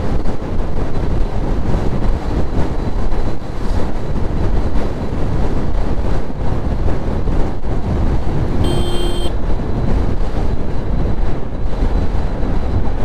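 Wind buffeting the microphone over the running engine and tyre noise of a Yamaha Aerox 155 scooter at highway speed. A short beep sounds about nine seconds in.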